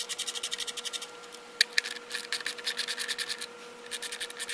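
Hand ratchet with a 10 mm socket clicking rapidly, about ten clicks a second, in three runs of strokes as it loosens the engine-cover bolts. There are two sharper single clicks between the runs.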